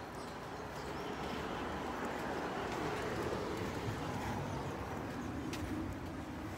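A car driving slowly past at close range, its engine and tyre noise swelling over a few seconds and then easing off, over footsteps on pavement.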